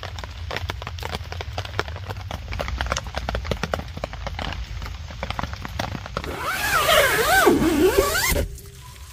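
Rain pattering in irregular drops over a low rumble, then, about six seconds in, a tent door zipper pulled around the curved door for about two seconds: a loud rasp whose pitch wavers with the pull, stopping abruptly.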